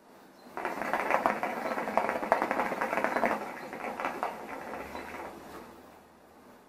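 Hookah water bubbling rapidly as smoke is drawn through the hose. It starts about half a second in, goes on for about five seconds and fades out as the draw ends.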